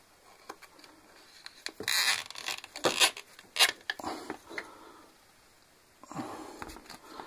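Plastic cable ties being pulled tight through holes in a plastic radiator grille: a cluster of short, sharp ratcheting zips and plastic clicks from about two to four and a half seconds in. Softer rustling and knocking of the grille being handled near the end.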